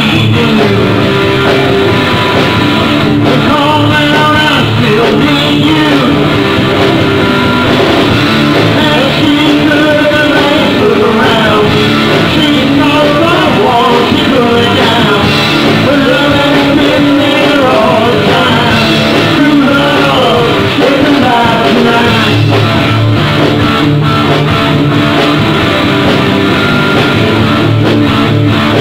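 Rock band playing live: electric guitars and bass guitar, with a voice singing over them.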